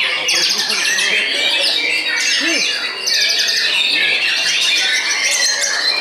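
A dense, continuous chorus of caged white-rumped shamas singing at once: many overlapping loud whistles, rapid trills and sweeping notes.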